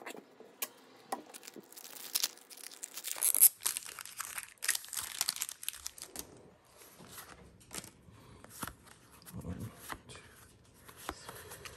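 A foil Pokémon booster pack wrapper being torn open and crinkled: a run of sharp crackling rustles through the first six seconds, loudest about three seconds in, then fainter scattered ticks as the cards are handled.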